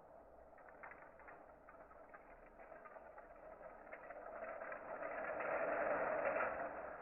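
Bamboo chopsticks rattling and rubbing together in a dense run of small clicks over a hiss, swelling louder for a couple of seconds near the end.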